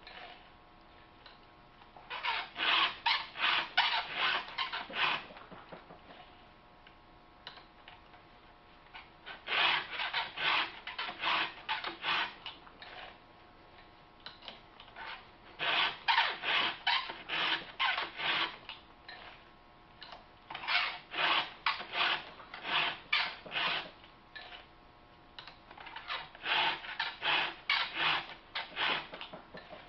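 A file rasping across the cutter teeth of a Husqvarna chainsaw chain held in a filing jig: five runs of about eight to ten quick strokes, each run followed by a pause of a few seconds as the next tooth is set up.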